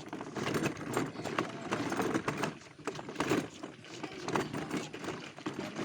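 A children's ride-on toy car rattling as it rolls, a run of irregular clattering knocks.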